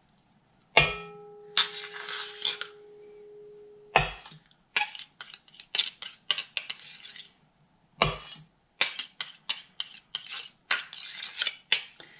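A knife and spoon scraping shortening out of a metal measuring cup and knocking against the stainless steel mixer bowl, with many quick scrapes and clinks. A sharp knock about a second in leaves a metal ring that lasts about three seconds, and further knocks come near the middle and about two-thirds of the way through.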